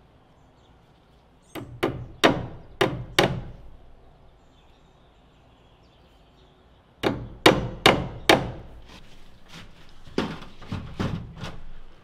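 Hammer driving cable staples into a wooden wall stud to fasten electrical cable. The blows come in two runs of sharp strikes: about five quick ones a second and a half in, then four hard ones near the middle that trail off into lighter taps.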